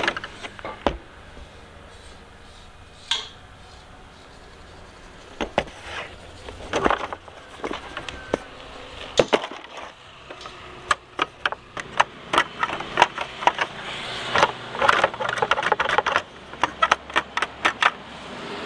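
Irregular knocks and clicks of hand work, like tools and metal parts being handled, scattered at first and coming in quick runs in the second half.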